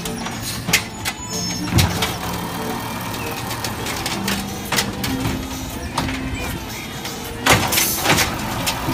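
Automated side-loader garbage truck running on natural gas while its hydraulic arm lifts and tips a wheeled trash cart, with several sharp knocks and bangs as the cart is handled.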